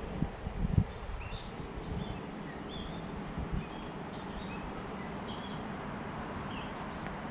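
Many small birds chirping over a steady outdoor background noise, with a few brief low thumps, the loudest about a second in.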